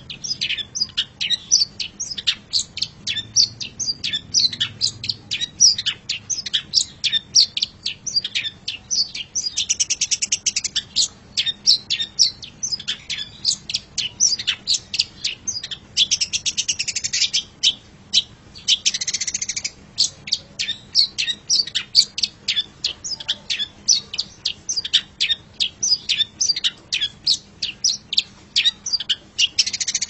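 Long-tailed shrike (cendet) singing: a fast, continuous run of short, sharp high chirps, broken a few times by brief rapid trills.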